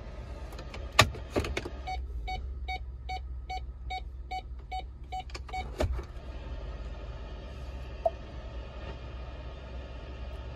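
The 3.5 L twin-turbo V6 of a Ford F-150 idles with a steady low hum. About a second in come two sharp clicks, then the truck's dashboard warning chime beeps evenly, about three beeps a second, for some four seconds before stopping with another click.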